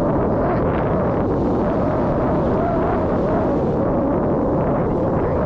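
Strong wind buffeting the microphone, a loud, steady rumbling rush with a wavering mid-pitched tone running through it.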